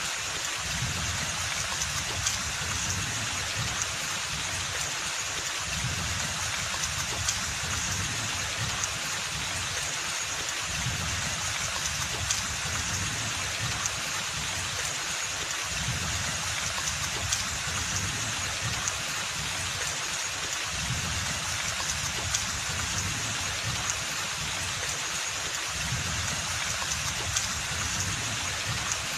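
Steady rain falling on forest foliage, with a continuous hiss and scattered louder drop ticks, over a low, wavering rumble.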